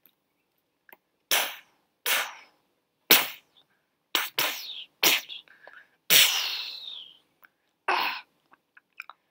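A person making gunshot sound effects with their mouth: about eight sharp, breathy bursts, the longest one about six seconds in.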